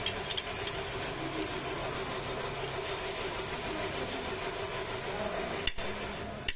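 An engine running steadily, with a few light clicks at the start and two sharp knocks near the end.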